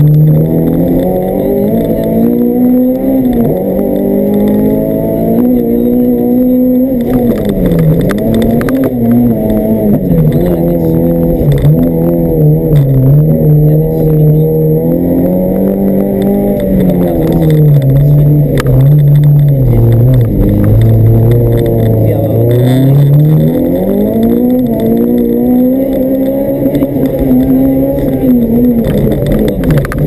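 Honda Civic rally car's B16B 1.6-litre four-cylinder VTEC engine heard from inside the cabin, revving up and dropping back over and over through gear changes and lifts as the car is driven flat out.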